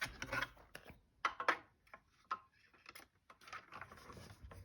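Hand-cranked mini die-cutting and embossing machine being turned to run card and dies through it, giving irregular clicks and knocks.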